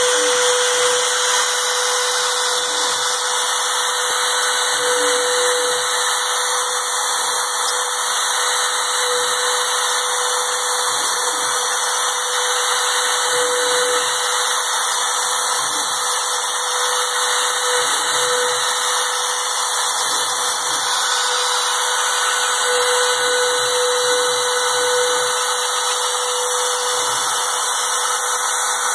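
A power tool running without a break: a loud, even hiss with a steady whine in it.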